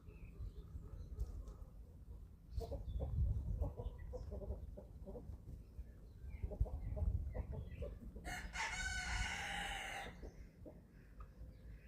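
Young chickens, about 11 weeks old, clucking softly among low thumps as they feed. About eight seconds in comes one harsh, rough call of nearly two seconds, the louder event: a young cockerel's attempt at a crow.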